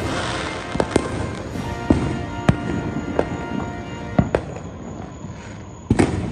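Fireworks going off: a string of sharp bangs at irregular spacing, roughly one a second, with two loud ones close together near the end.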